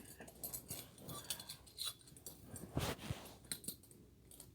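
Faint rustling and light metallic clicks of handcuffs, shackle chain and a key being handled, with a brief louder rustle about three seconds in.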